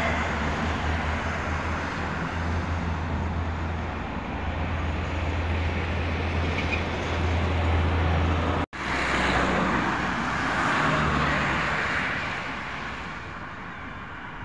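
A steady low engine hum over outdoor traffic noise. It cuts off abruptly about nine seconds in, and road traffic noise follows.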